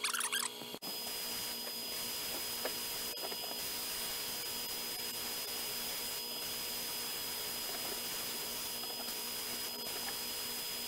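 Sandblasting cabinet in use: a steady hiss of air and abrasive over the droning hum of the cabinet's dust-collector suction. The sound breaks off sharply for a moment about a second in, then runs on unchanged.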